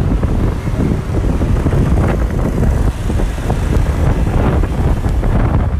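Wind buffeting the microphone on a moving motorcycle taxi, a loud steady low rumble mixed with road and traffic noise.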